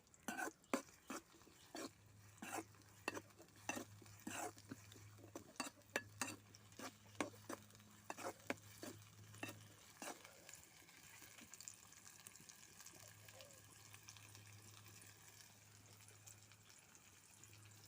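Onions sautéing in hot oil in a pan, stirred with a ladle: a quick run of scraping knocks against the pan for about the first ten seconds, then only a faint sizzle.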